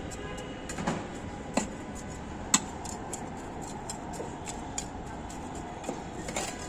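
Small hand trowel scraping and patting loose soil to level it in a large terracotta pot, with irregular sharp clicks and scrapes over a steady background noise.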